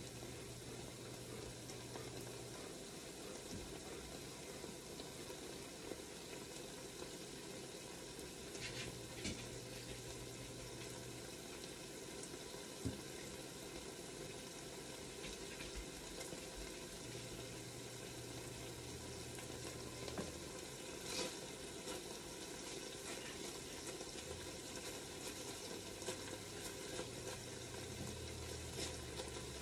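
Bacon sizzling and frying in an enameled cast iron Dutch oven, a steady hiss with scattered small crackles. Near the end a utensil stirs the bacon, adding a few scraping clicks.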